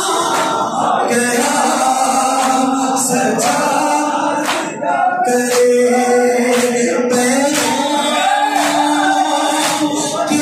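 Noha sung by a male reciter over a microphone, with a crowd of men singing along in unison, and a steady beat of matam chest slaps a little more than once a second.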